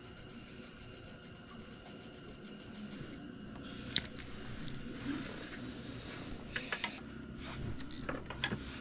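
Quiet handling of fishing tackle: light clicks and rustles, with a sharp click about four seconds in and a cluster of clicks near the end. A faint high-pitched whine stops about three seconds in.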